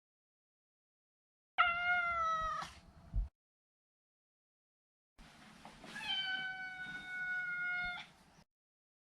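Maine Coon cat meowing twice: a short meow about a second and a half in, then a longer meow held at a steady pitch for about two seconds.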